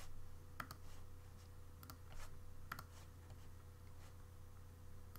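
Faint computer mouse clicks, about four or five spaced irregularly about a second apart, over a low steady hum.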